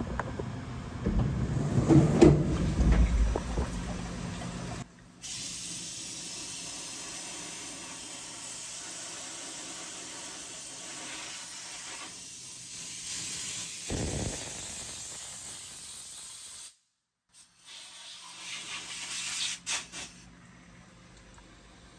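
Steady spraying hiss from a DVF 5000 5-axis CNC machining centre at work, preceded by a louder low rumble in the first few seconds. The sound cuts out abruptly twice.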